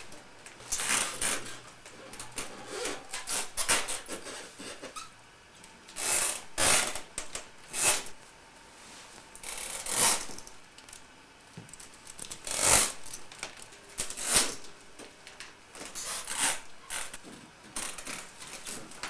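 Small doll stroller creaking and rattling under a weight it was not built for, in irregular short bursts every second or two.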